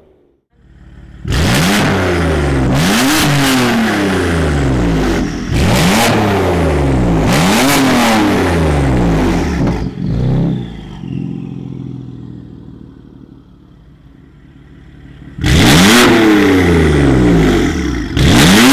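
BMW M4's twin-turbo straight-six, through an iPE aftermarket exhaust, accelerating hard. The pitch rises and drops back at each of several quick upshifts, then fades away. Near the end it comes back loud with another rising acceleration.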